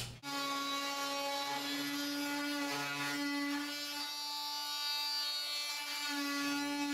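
Corded Makita oscillating multi-tool with a wood/metal blade running steadily as it cuts through drywall beside a fiberglass shower surround. It makes a steady, even-pitched buzz whose level varies only slightly as the blade is pressed into the wall.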